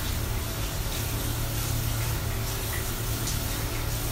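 Tap water running into a bathroom sink while hands splash and rinse in the basin, over a steady low hum.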